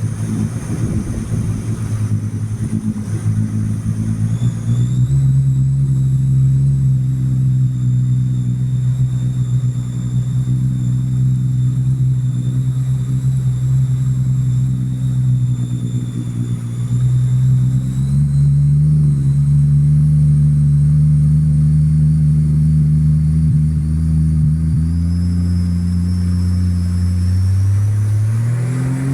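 Sea-Doo RXP 215 jet ski's supercharged four-stroke engine running through a free-flow exhaust, holding steady revs that step up about five seconds in and again past the middle, then rising in a rev near the end. A thin high whine runs along with the engine note.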